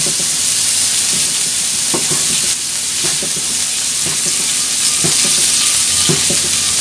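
Beef sizzling steadily in a hot steel wok, with several short knocks of a cleaver on a wooden chopping block as the seared beef is sliced.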